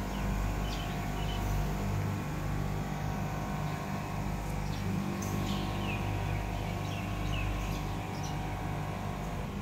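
Outdoor city ambience: a steady low hum with short bird chirps here and there.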